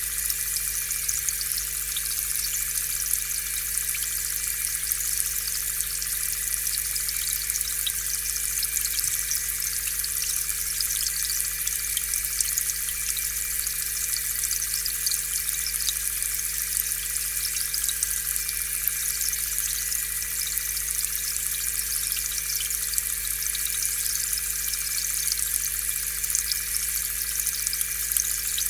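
Aquarium air pump running steadily: a constant motor hum under the continuous bubbling and fizzing of air bubbles rising through the tank water.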